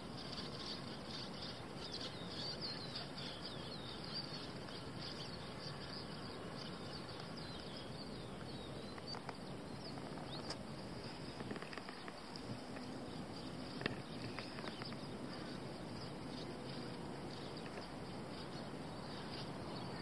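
Faint countryside ambience: a steady low hiss of insects with scattered small bird chirps.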